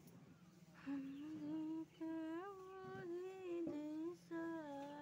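A woman humming a tune with her mouth closed, held notes that slide up and down between pitches, starting about a second in.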